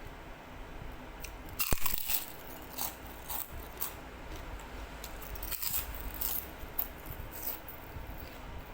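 Close-up biting and chewing of crisp food: a loud crunching bite about two seconds in, then a run of crackly chewing crunches.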